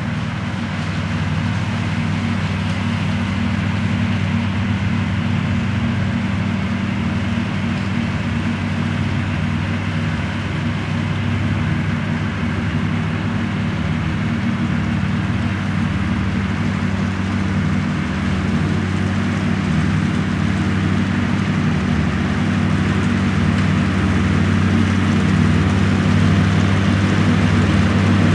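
A 1964 Ford 4000 tractor's four-cylinder engine running steadily as the tractor mows grass, getting louder near the end as it comes closer.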